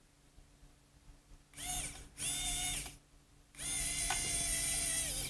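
Small cordless electric screwdriver running in three short spells, driving the terminal screws on a valve actuator's circuit board. Each spell is a steady whine that rises in pitch as it spins up. The last is the longest, with a click partway through, and it sinks in pitch as it stops.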